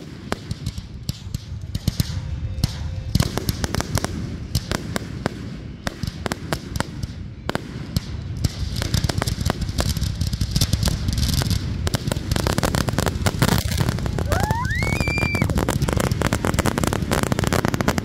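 Fireworks going off in a rapid, dense barrage of bangs and crackles over a continuous rumble, growing denser about halfway through. About three-quarters of the way in, a whistle rises in pitch and briefly holds.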